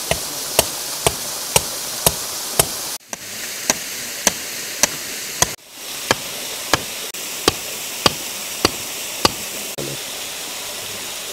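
Stone hammering the top of an iron sajji skewer, driving it into gravel in sharp, even knocks about twice a second. The knocks stop about nine seconds in, leaving the steady rush of a waterfall.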